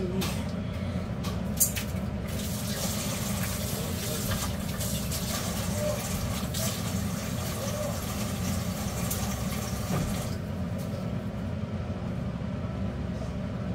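Steady low kitchen hum with a rushing hiss over it that cuts off abruptly about ten seconds in. A single sharp click comes near the start, and faint voices are in the background.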